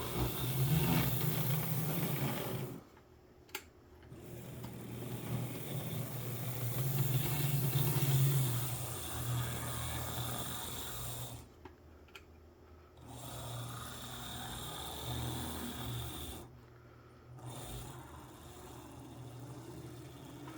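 HO scale brass U50 model locomotive's dual Pitman motors and gear drive running on the track, a steady whir at slow speed that swells and fades with the throttle and stops briefly three times.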